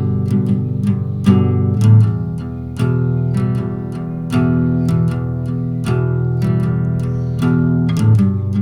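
Background music: plucked guitar playing a steady, repeating pattern of chords.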